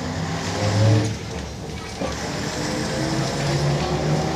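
Ikarus 260 bus's diesel engine pulling under load inside the cabin, its pitch climbing in steps as the bus gathers speed.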